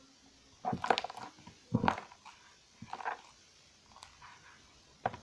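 Sticky slime, softened with moisturiser, being squeezed and stretched by hand: a few short squelching, crackling clicks about a second apart.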